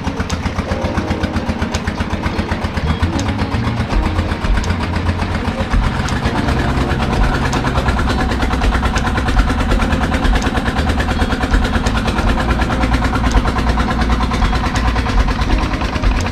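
Boat engine running steadily, with a rapid, even pulse.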